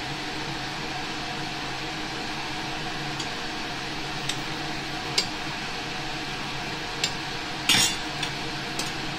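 Kitchen utensils and dishes clinking as the tea is served: a handful of light, scattered clinks, with the loudest and longest a clatter near the end. Under them runs a steady background hiss.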